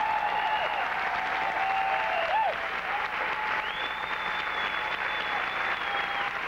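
Audience applauding steadily, with long held high-pitched calls riding over the clapping.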